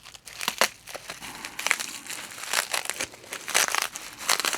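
Parcel packaging being unwrapped by hand: irregular crinkling and rustling as the wrapping is crumpled and pulled apart.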